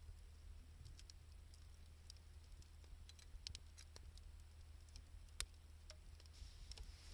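Wood fire of scrap two-by-four lumber and scavenged wood crackling quietly, with a few scattered sharp pops, the loudest about five seconds in, over a low steady hum.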